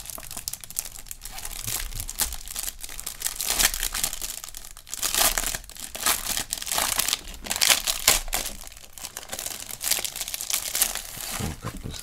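Thin clear plastic packaging bag crinkling and rustling in irregular bursts as fingers open it and pull it off a packet of printed cards.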